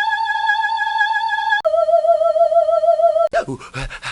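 A person's voice holding a high, operatic-style wavering note, which drops to a lower, wobblier held note about one and a half seconds in. Near the end it breaks into a quick run of short grunting sounds.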